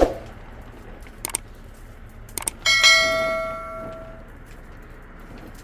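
A dull thud, a few light clicks, then a metal object struck once, ringing with a clear bell-like tone that fades over about a second and a half.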